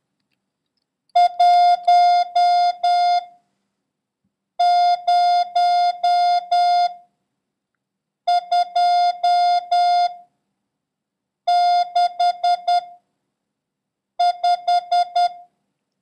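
Computer-generated Morse code practice tone sending the number 10265 as five characters with gaps between them: dit-dah-dah-dah-dah (1), five dahs (0), dit-dit-dah-dah-dah (2), dah-dit-dit-dit-dit (6) and five dits (5). It is a single steady beep, keyed on and off.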